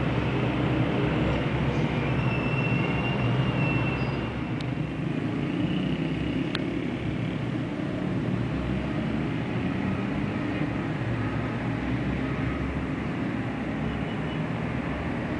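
Busy city road traffic at a junction: a steady mix of car, bus and motorbike engines and tyre noise. A couple of thin high tones sound in the first four seconds, and two short clicks follow.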